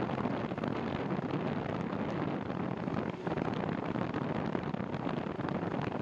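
Steady rushing wind noise on the microphone of a bike-mounted camera while riding into a cold, gusty wind.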